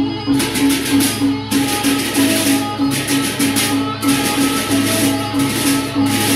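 Sasak gendang beleq ensemble playing: many pairs of hand cymbals crash in rapid bursts that break off every second or so, over a quick repeating pitched gong note and the deep beat of the large barrel drums.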